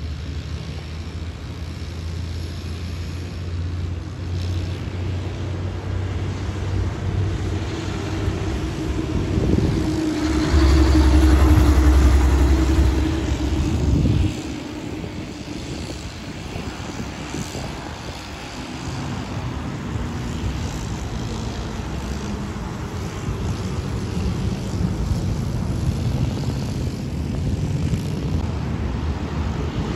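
Old dump truck's engine passing close on the highway, a deep drone that swells and is loudest about ten to fourteen seconds in, then cuts off suddenly. Quieter passing traffic follows, swelling again near the end as a tanker semi comes by.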